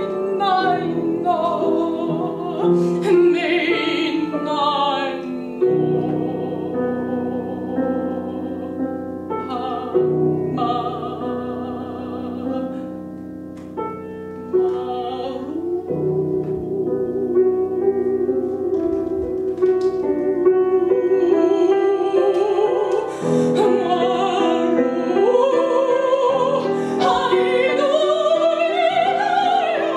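A woman singing an improvised operatic aria on nonsense syllables over piano accompaniment, holding long notes with wide vibrato and climbing higher near the end.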